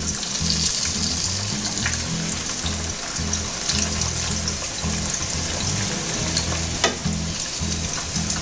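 Floured alligator meat deep-frying in hot vegetable oil in a pan: a steady hissing sizzle of bubbling oil. Two sharp clicks stand out, about two seconds in and again near seven seconds.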